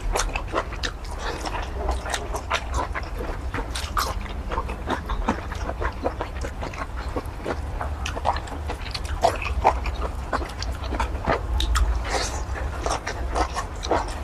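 Close-miked chewing, wet lip-smacking and slurping of a person eating saucy curry squid, a dense run of irregular short smacks and clicks.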